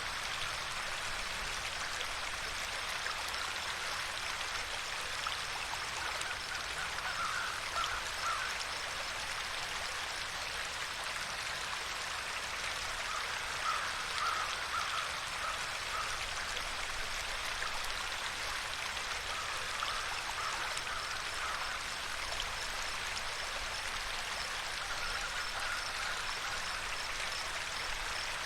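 Steady running-water noise from a nature ambience, with a faint pulsed animal call that comes and goes four times.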